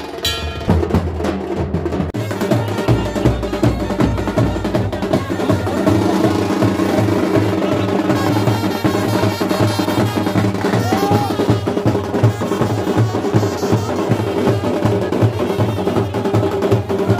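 Wedding band playing loudly: drums, including a bass drum, keep a fast, steady beat under a melody line.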